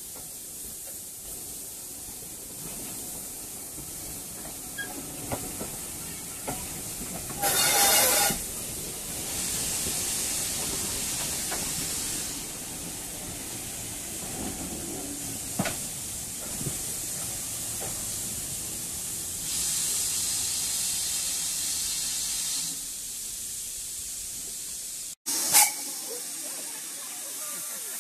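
Steam-hauled passenger coaches rolling slowly past on the rails, with hissing steam. There is a loud burst of hiss about eight seconds in and longer stretches of hiss later on. The sound cuts off abruptly near the end.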